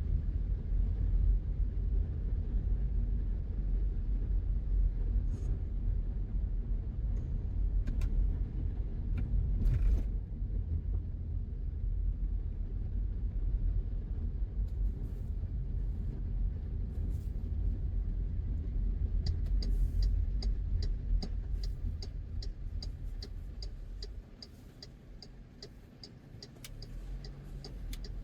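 A car driving, with a steady low road and engine rumble. About two-thirds of the way in, a turn-signal indicator starts ticking evenly at roughly two to three clicks a second, while the rumble fades as the car slows.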